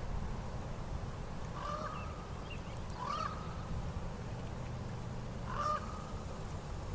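Three short bird calls spaced a second or two apart, over a steady low rumble.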